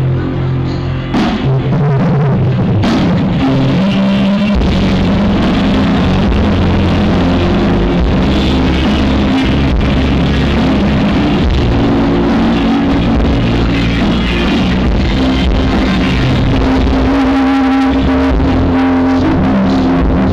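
Live rock band playing loud over a PA: electric guitar over bass and drum kit. It is heard through a faulty camera microphone that spoils the sound.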